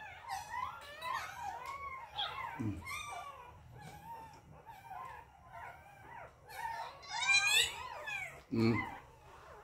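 A puppy about two weeks old crying in a run of wavering, high-pitched whines and squeals, loudest about seven to eight seconds in. Two dull thumps come in, one about three seconds in and one near the end.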